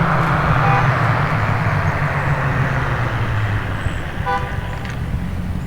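A truck's engine running as it drives by, its low hum fading steadily away. A short pitched sound comes about four seconds in.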